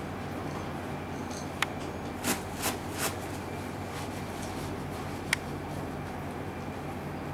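Gloved hands handling tissue and a plastic bin bag: a sharp click, three short rustles soon after, and another click later, over a steady low electrical hum.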